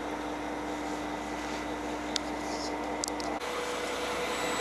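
Fishing boat's engine running steadily, a constant hum under a hiss of wind and sea, with a couple of faint clicks near the middle. The hum jumps abruptly to a higher tone a little after three seconds in.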